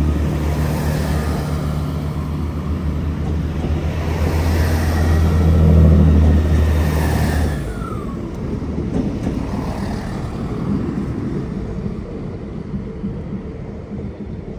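Diesel engines of a pair of coupled Class 165 diesel multiple units running with a steady low drone that grows louder to about six seconds in, then drops away sharply about seven and a half seconds in, leaving a quieter rumble that fades.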